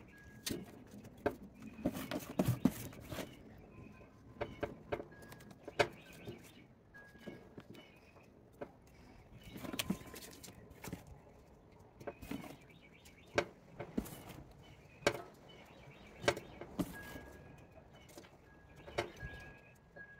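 Potting soil being poured from a plastic tub into a plastic plant pot and pressed down by hand: irregular rustles, scrapes and taps of soil and plastic. Birds chirp faintly at times.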